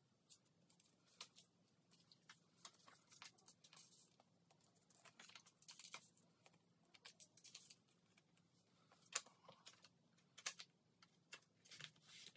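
Faint rustling and small irregular clicks of clear plastic binder sleeves as photocards are slid in and out of the pockets, with a couple of sharper ticks past the middle.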